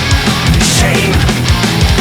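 Loud heavy metal music with a fast, driving drum beat.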